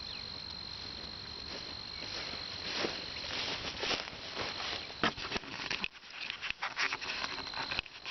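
A steady, high insect drone, with dry sticks and brush crackling and rustling in quick, irregular snaps from a few seconds in as the stick framework is handled and walked on.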